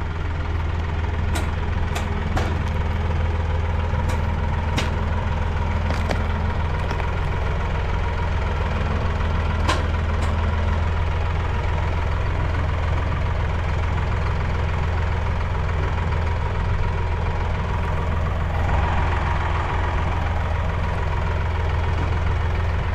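Tractor engine running steadily at a low, even speed. A few sharp clicks or knocks come through in the first ten seconds.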